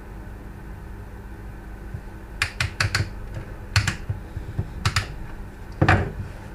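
Sharp plastic clicks and taps from a car's Thermotronic climate-control unit being pried apart by hand. There is a quick run of clicks midway, a few more after, and a heavier knock near the end.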